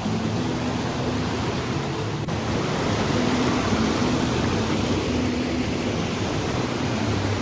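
Rushing water from a nearby waterfall: a steady, even roar of water noise.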